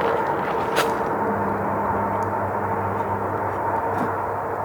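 Steady electrical hum made of several fixed tones from a camera gimbal whose motor is not properly connected, with one sharp click about a second in.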